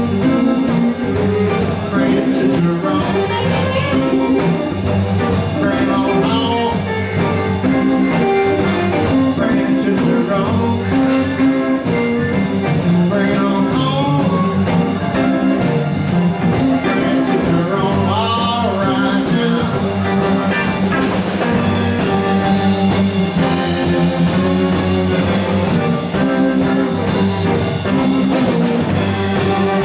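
A live electric blues band playing a shuffle-type groove, with electric guitars over a steady beat and a bass line.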